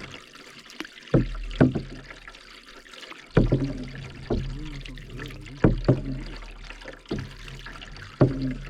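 Canoe being paddled: about eight sharp knocks at irregular intervals as the paddles stroke, each followed by a low fading hum, with water trickling and swirling around the blades between strokes.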